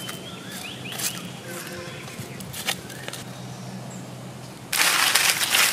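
Faint bird chirps over a low steady hum, then, near the end, loud crackling and rustling of dry fallen leaves being gathered up by hand.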